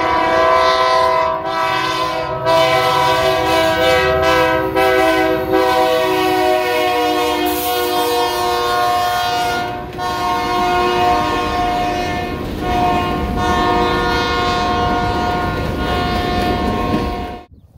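Diesel freight locomotive's air horn sounding a chord in long, nearly unbroken blasts as the train passes, over the rumble and clatter of hopper cars rolling by. Everything cuts off abruptly near the end.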